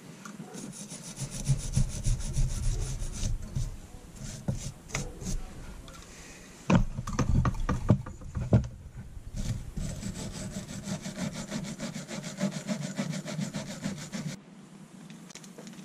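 Small brass wire brush scrubbing old gasket maker off a carburetor's gasket surfaces in quick, rapid strokes, going slowly so as not to score the metal. The scrubbing stops suddenly near the end.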